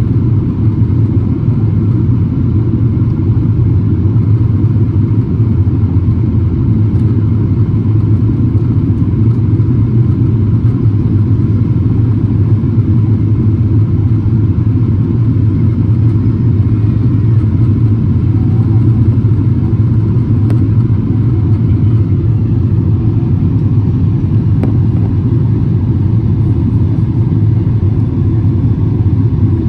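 Jet airliner cabin noise from a window seat over the wing on approach: a steady low rumble of the engines and airflow, with no change throughout.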